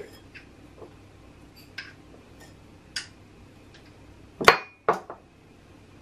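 A metal spoon clinking against a glass jar and an enamel mug: a few light taps, then two louder clinks about four and a half and five seconds in.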